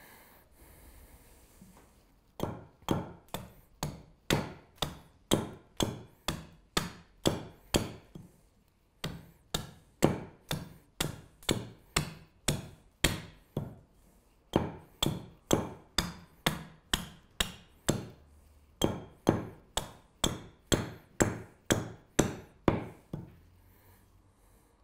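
Small carving axe chopping into an alder spoon blank held against a wooden chopping stump. Sharp, quick strokes come about two a second, in runs broken by a few brief pauses.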